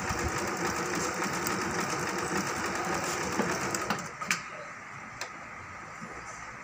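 Juki computerised sewing machine running steadily while sewing an overlock stitch along a fabric edge. It stops about four seconds in, and a few sharp clicks follow.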